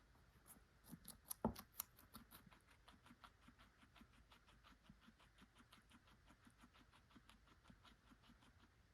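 Guinea pig chewing carrot: quick, crisp crunching clicks at about four or five a second, with a louder flurry of crunches a little over a second in.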